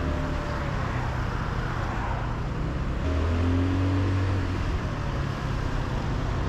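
Scooter running on the road: a steady low engine note under a rush of wind and road noise. The engine gets louder about three seconds in, with a brief rise in pitch, then eases back.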